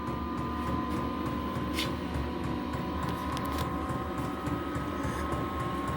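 Budget diesel air heater running: a steady fan whine over a low rumble that pulses at a fast, even rhythm.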